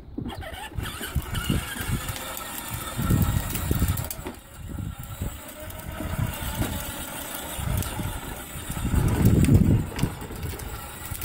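Battery-powered ride-on toy motorcycle driving along a concrete sidewalk: its small electric motor whines steadily, over a low rumble that comes and goes and is loudest about nine seconds in.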